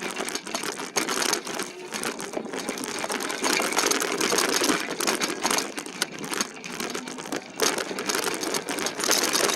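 E-bike riding over a rough, holed trail: a constant clatter and rattle of the bike and its phone mount jolting over the bumps, with tyre noise underneath.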